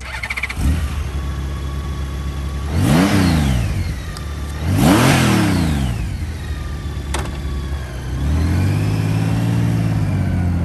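Honda Gold Wing GL1800's flat-six engine starting, idling, and revved twice in quick blips, each rising and falling in pitch. Near the end the engine note climbs under load as the bike pulls away.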